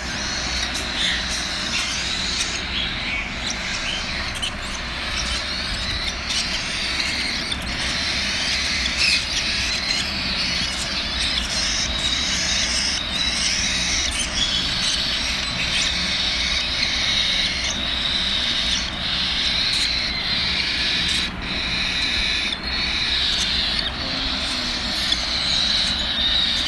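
Hungry cockatiel chicks giving their food-begging calls while being hand-fed: a continuous raspy, hissing chatter with many short clicks.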